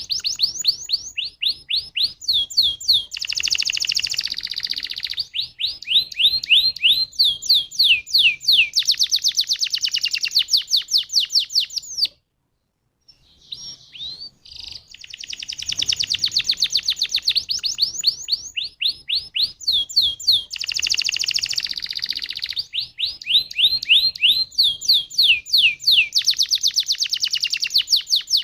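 Canary singing long rolling trills of rapid downward-swept notes, changing from phrase to phrase. The song breaks off about twelve seconds in, then starts again after a second or so.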